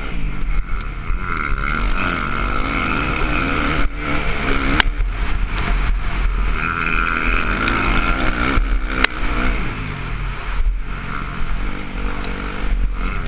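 Motocross bike engine ridden hard on a dirt track, its pitch rising and falling as the throttle opens and closes, heard close up from an onboard camera with heavy wind rumble on the microphone. A few sharp knocks cut through about four, five, nine and eleven seconds in.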